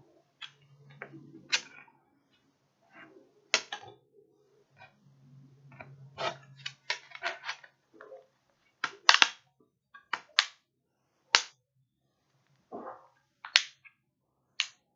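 Irregular sharp clicks and taps, about fifteen of them, scattered and uneven, of a smartphone being handled and pressed, with a faint low hum under the first half.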